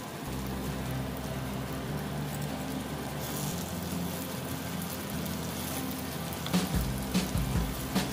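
Chopped bird's eye chillies and garlic sizzling in oil in a pot, over background music. From about six and a half seconds in, a spoon knocks and scrapes against the pot about three times a second as the mixture is stirred.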